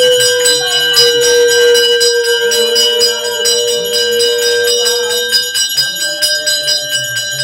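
A brass hand bell rung continuously during an aarti, with quick repeated strikes and a steady metallic ring. Under it runs a long steady note for about five seconds, then, after a short break, a second slightly higher one.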